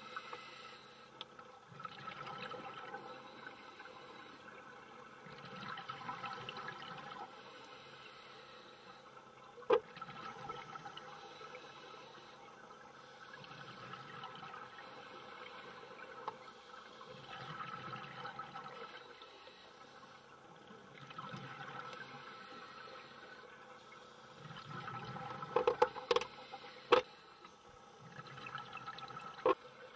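Scuba divers breathing underwater through their regulators: bubbly exhalations that swell and fade every few seconds. A few sharp clicks cut through, one about ten seconds in and a louder cluster near the end.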